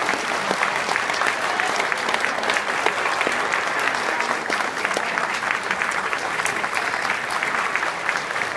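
Audience applauding steadily: a dense, even wash of many hands clapping.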